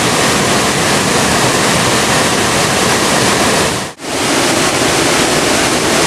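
Small waterfall pouring into a rock pool: a steady rush of falling water that cuts out for a split second about four seconds in, then resumes.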